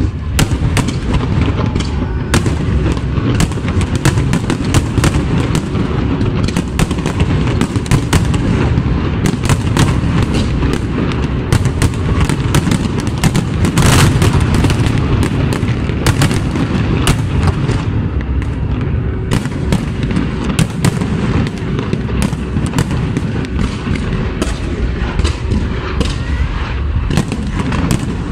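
Fireworks display: a dense, continuous barrage of aerial shell bursts going off in rapid succession, with the heaviest volley about halfway through.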